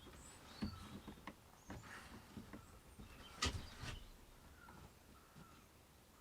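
Faint, scattered clicks and knocks of a screwdriver working on the chainsaw's parts, the sharpest about three and a half seconds in, with birds chirping faintly.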